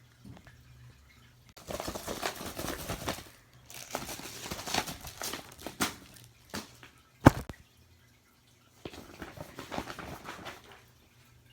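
A binder being handled: pages crinkling and rustling in several bursts of a second or more, with one sharp snap about seven seconds in. A faint steady hum from the fish tank runs underneath.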